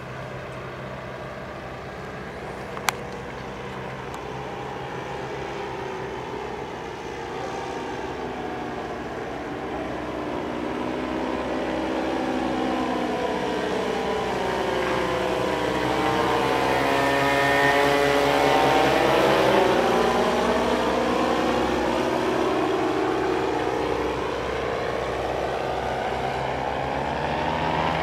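Paramotor of a powered paraglider flying past overhead: a steady engine-and-propeller drone grows louder, is loudest about two-thirds of the way through, then eases off a little. A single sharp click comes about three seconds in.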